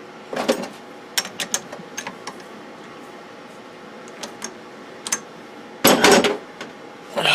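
Metal parts being handled on a bench: a short scrape, a run of light clicks and taps, then a louder clatter about six seconds in and another just before the end.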